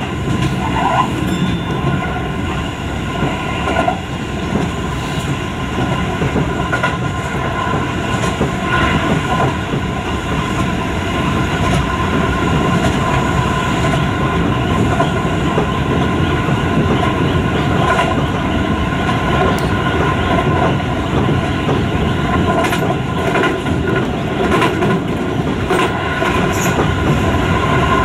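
Keio 5000 series electric train running at speed, heard from inside the passenger car: a steady rolling rumble of wheels on rail with a steady whine and a few scattered rail clicks.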